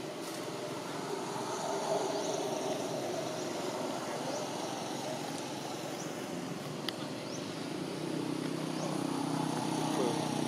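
Distant motor vehicle engine running steadily, its hum growing louder near the end, with a few faint high chirps over it.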